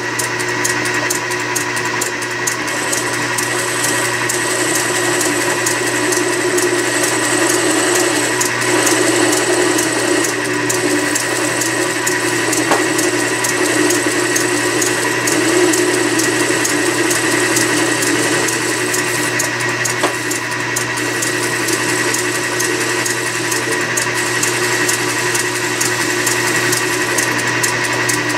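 Logan lathe running, with a radius form tool plunge-cutting the end of a half-inch cold rolled steel bar: a steady machine whine under a rougher, wavering cutting noise, with a little chatter.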